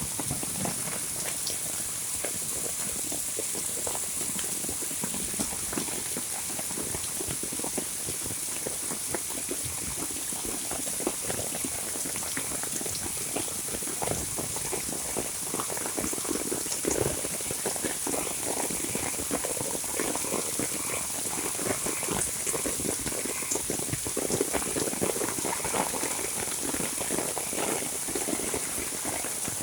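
Heavy monsoon rain falling steadily: a dense patter of drops splashing, over a steady high hiss.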